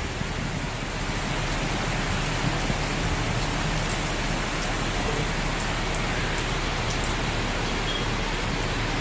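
Heavy rain falling steadily, a dense, even hiss with a few faint ticks of drops mixed in.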